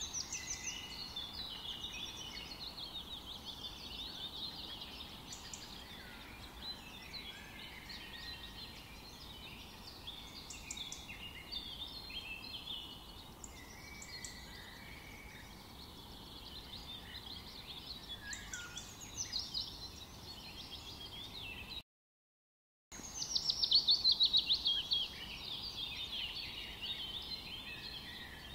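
Several birds singing and chirping at once, many short overlapping calls and trills. Near the end the sound cuts out for about a second, then a louder run of fast, falling trill notes follows.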